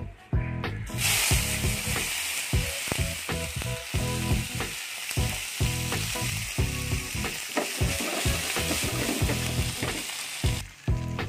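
Sliced tomatoes, red onion and garlic hitting a hot oiled frying pan and sizzling, starting suddenly about a second in and cutting off abruptly near the end.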